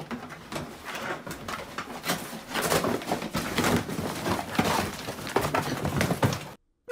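A dog tearing into a cardboard box and scuffling with a person on the floor: a dense run of cardboard crunching, ripping and scraping that cuts off suddenly near the end.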